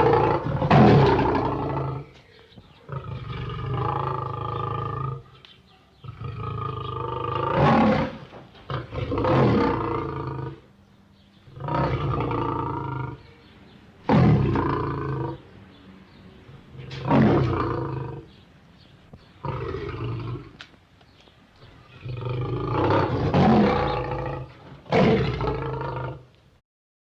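A lion roaring and growling, about ten separate roars one to three seconds apart over a steady low hum, falling silent near the end.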